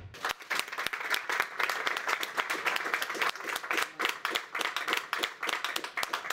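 Audience applauding: many people clapping together.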